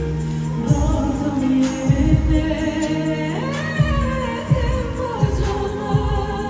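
Pop song with a singer over a steady drum beat.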